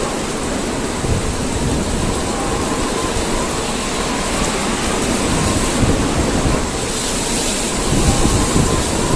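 Heavy rain in strong gusting wind, the wind buffeting the microphone with low rumbling gusts.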